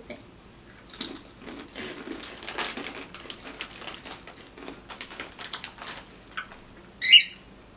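Crinkling plastic Takis chip bag as hands dig in for chips: a dense, irregular run of crackles. Near the end, one brief, loud, high-pitched sound.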